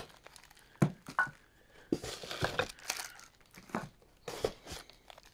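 Plastic wrapping crinkling and rustling as plastic-wrapped stand legs are handled, lifted out of a cardboard box and set down, with several light knocks.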